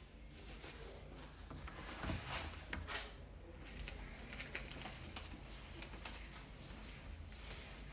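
Faint rustling with a few short, sharp clicks over a low steady background hum; the loudest clicks come about two to three seconds in.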